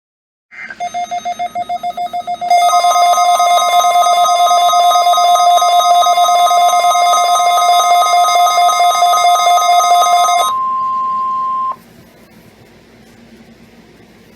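NOAA Weather Radio warning alarm tone, a steady 1050 Hz tone sent as the weekly test. It sounds together with fast pulsing electronic beeps from the receiving weather radio's own alarm. The beeping starts about half a second in and gets louder when the steady tone starts, about two and a half seconds in. The beeping stops about ten seconds in, and the tone runs on alone for about another second before cutting off to a faint hiss.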